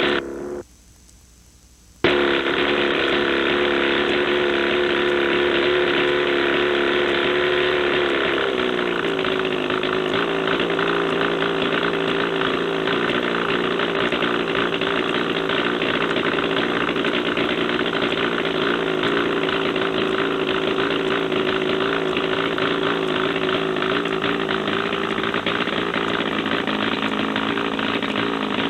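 Ken Wallis single-seat autogyro's small piston engine running steadily at idle. The sound cuts out for a moment near the start, and the engine note drops slightly about eight seconds in.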